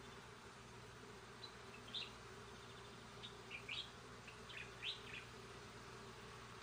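Faint steady hum of honeybees swarming over frames lifted from a hive opened without smoke, with a handful of short, high bird chirps between about two and five seconds in.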